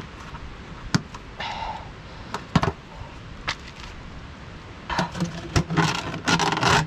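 Hands working heater fittings under a van's floor: a few sharp clicks and knocks with a brief scrape, then a longer stretch of scraping and rustling near the end.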